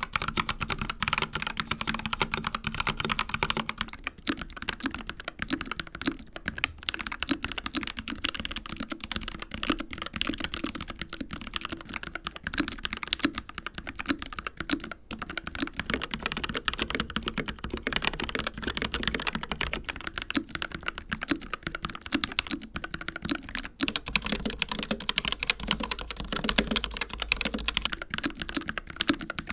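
Steady fast typing on a series of mechanical keyboards, the board changing about every eight seconds: an Akko 3068B Plus with Jelly Black switches, a Dark Project KD083A with Gateron Cap Teal switches, a CZC Reaper with TTC Red switches, then an Asus Strix Scope RX with ROG RX Red switches. The keys click and clack rapidly throughout.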